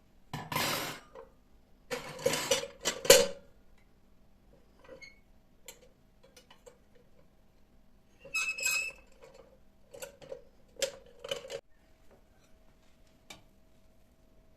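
Dishes and cutlery clattering and clinking as they are handled, in several short bursts with pauses between.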